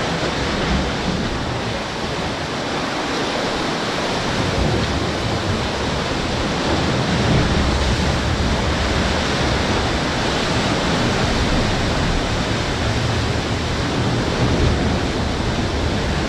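Sea surf surging and breaking against the rock walls of a sea cave right beside a small boat, a loud continuous wash of churning water. A heavier low rumble joins about four seconds in.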